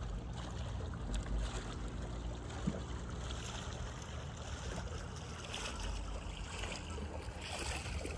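Water swishing and trickling against the hull of a clear plastic kayak as it is pushed through calm, shallow water, over a steady low rumble.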